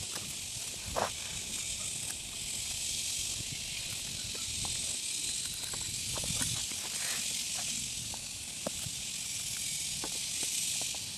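Steady outdoor background hiss with a low rumble underneath, broken by a few faint clicks and knocks from handling the plastic bottle and bag.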